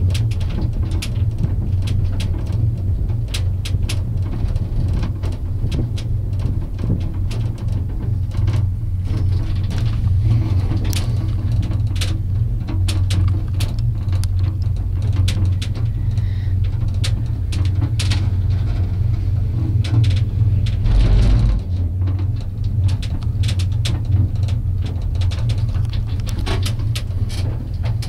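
Steady low hum of a gondola cabin riding its haul cable, with frequent small clicks and rattles, and a louder rumble about two-thirds of the way through.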